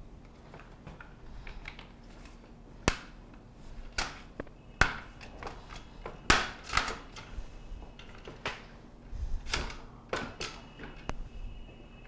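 Plastic adjuster arm being worked onto a KitchenAid dishwasher's wire top rack by hand: a dozen or so irregular sharp plastic clicks and knocks against the rack, the loudest about three, five and six seconds in.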